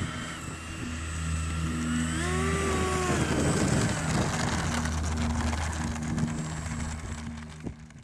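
Electric ducted fan of a foam RC F/A-18 jet whining while it rolls on the runway. The whine glides gently down, rises and falls again about two seconds in, over wind noise and a steady low hum, and fades out at the end.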